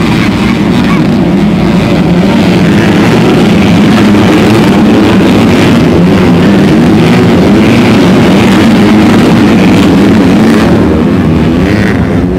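Motocross bike engines racing on a dirt track, loud and continuous, their pitch rising and falling as the riders rev and shift.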